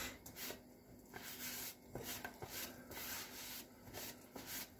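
Faint rubbing or scraping strokes, about two or three a second, over a faint steady hum.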